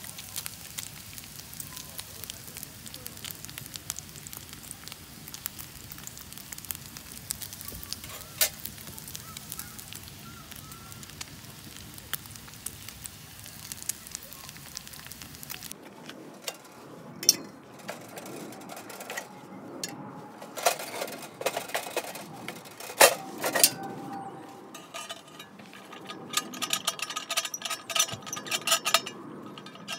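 Wood fire crackling in a homemade ammo-can stove with chicken sizzling on the steel griddle above it, a steady hiss with scattered sharp pops. About sixteen seconds in it cuts abruptly to music with metallic clinks.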